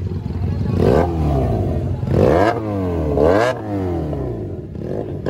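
Benelli motorcycle engine revved three times while standing still, each rev climbing quickly in pitch and falling back to idle.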